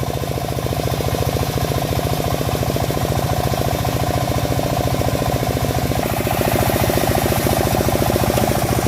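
Engine of a homemade bandsaw sawmill running steadily with a rapid, even beat; about six seconds in its sound grows fuller and slightly louder.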